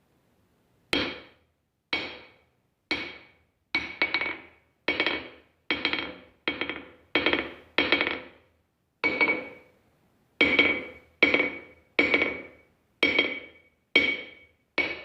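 Hammer blows on a steel anvil, about sixteen strikes at roughly one a second and quickening near the end. Each blow gives a bright metallic ring that dies away within about half a second.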